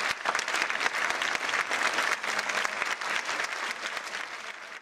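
Theatre audience applauding: many hands clapping, thinning a little near the end.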